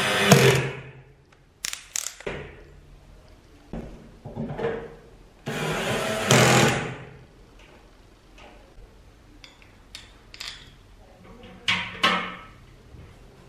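Cordless drill driving screws through a rice cooker's metal lid into black plastic handles, in several short whirring bursts, with sharp knocks and clicks from handling the parts in between.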